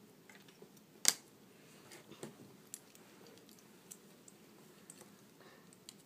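Scattered small plastic clicks of LEGO minifigure pieces being handled and snapped together, with one sharper click about a second in, over a steady background hiss.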